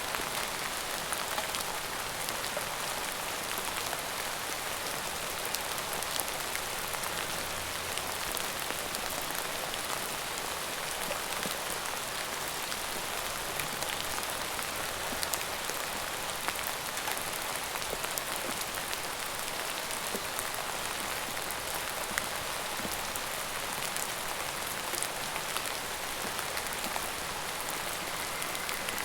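Steady rain falling on a surface, an even hiss dotted with the sharp ticks of individual drops.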